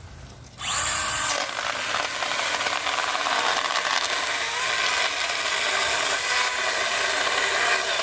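Stihl GTA26 battery-powered mini chainsaw starting abruptly about half a second in and running steadily at full speed with a high motor-and-chain whine, cutting through wood.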